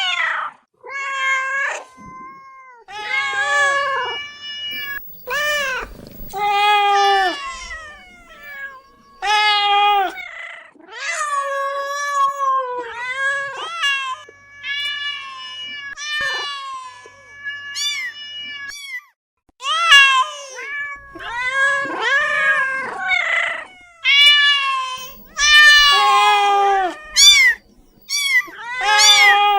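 Domestic cat meowing over and over, a long string of drawn-out meows, each rising and falling in pitch, with short pauses between them.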